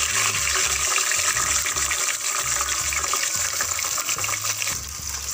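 Blended shallot, garlic and ginger paste poured into hot oil in a metal pot, sizzling with a steady, dense hiss as the wet paste fries.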